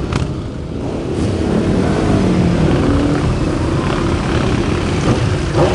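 Several motorcycles riding past in a procession, their engines running with pitch rising and falling as they throttle on and off.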